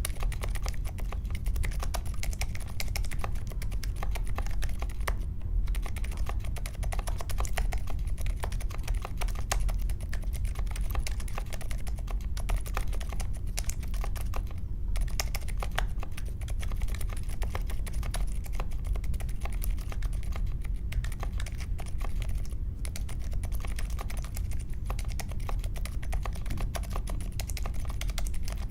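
Mechanical keyboard with unlubed Akko CS Vintage White linear switches, in an aluminium case with foam and tape mods and clipped stabilizers, being typed on fast and continuously. A few brief pauses break the stream of key presses.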